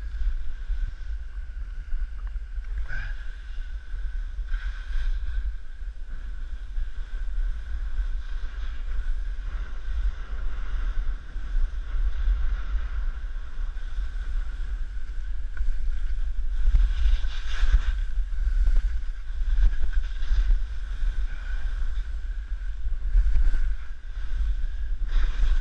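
Wind buffeting the microphone of a skier's camera during a downhill run: a steady low rumble, with the hiss and scrape of skis on snow swelling now and then.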